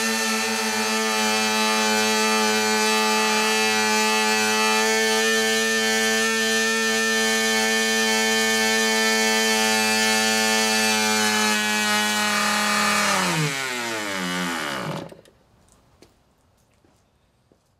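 Fox .15 two-stroke glow engine running steadily at high speed on a rich break-in setting, then its pitch falling as it slows over about two seconds and stops about fifteen seconds in.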